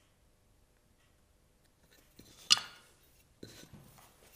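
Wooden workpieces and a steel square being handled on a carpet-covered bench: one sharp clack about halfway through as they are set down or knocked together, then softer shuffling and handling sounds.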